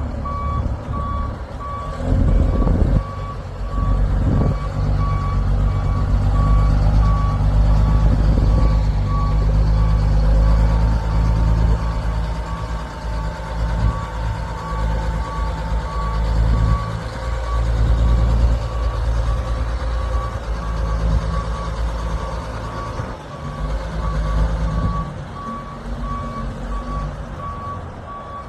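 A vehicle's backup alarm beeping at an even pace over a heavy diesel engine running, as a truck crane is unloaded off the trailer. The engine works harder through the middle stretch, and there are a couple of short knocks a few seconds in.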